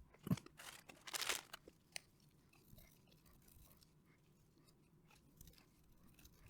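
Small handling noises on a workbench: a few light clicks and a short dry scratchy scrape, as of a tool or fingers working on a circuit board.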